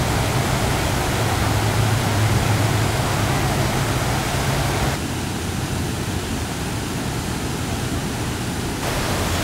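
Steady rush of a muddy river in flood, churning through trees. About five seconds in it turns duller and softer for a few seconds, then comes back brighter near the end.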